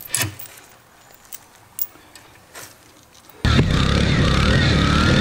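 A few light clicks of hand tools on metal, then about three and a half seconds in a sudden jump to the motorized cooler's 49cc four-stroke engine running loud and steady, heard from a camera mounted close behind it.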